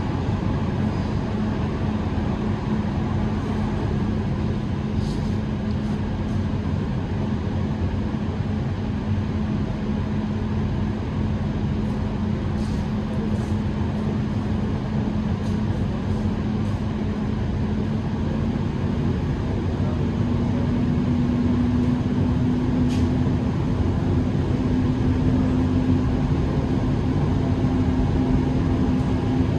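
Steady hum and air-conditioning noise inside a Dubai Metro train standing at a station before departure. A low tone steps up slightly in pitch and gets a little louder about two-thirds of the way through, and there are a few faint ticks.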